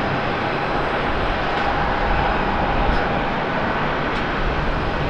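Airbus A350-900 jet engines at takeoff power as the airliner climbs out: a steady, loud rushing jet noise with a faint whine.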